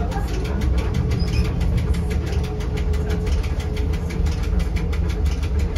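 Rigi rack railway train running, heard from inside the driver's cab: a steady low rumble with a fast, even clatter from the running gear, and a faint steady whine.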